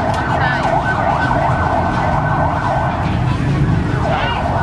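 Electronic background music: a quickly wavering high synth line and a held high note over a steady bass.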